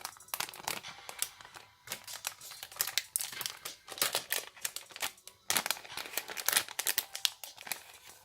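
Packaging being unwrapped by hand: irregular crinkling and rustling that comes and goes, louder in the middle and later part.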